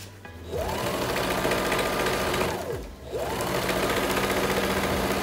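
Electric domestic sewing machine stitching a seam: the motor speeds up, runs steadily, slows and stops about three seconds in, then starts again and runs on at steady speed.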